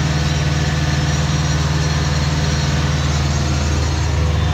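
Deutz-Fahr DX 3.65 tractor's diesel engine running steadily under load while the PTO-driven Pöttinger NovaDisc 265 disc mower cuts grass, heard from inside the cab. The engine note shifts slightly about four seconds in.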